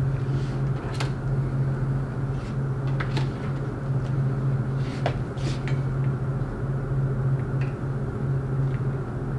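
Plastic hose being handled and pushed onto a stainless steel fitting, giving a few light, scattered clicks and taps. Under it runs a steady low hum.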